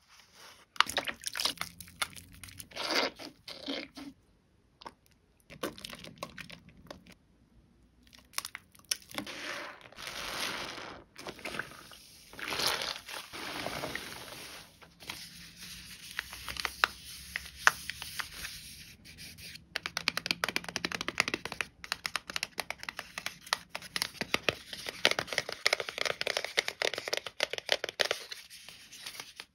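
Soaked, mushy Bio Mio bio-soap being worked into thick foam: wet squishing with many small crackles, in bouts broken by short pauses.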